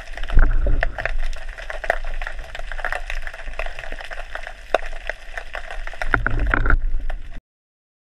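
Water sloshing and bubbling, heard underwater, with many scattered sharp clicks and low rumbles around the start and again about six seconds in. It cuts off abruptly a little after seven seconds.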